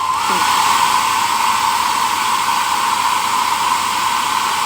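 Gaabor hair dryer running on its third, hottest setting: a steady rush of air over a steady motor whine that dips briefly and recovers just after the start.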